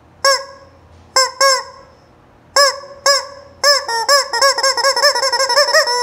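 Rubber chicken squeeze toy squawking: five separate squeezes in the first three seconds, then a fast run of squawks, about five a second, through the last two seconds.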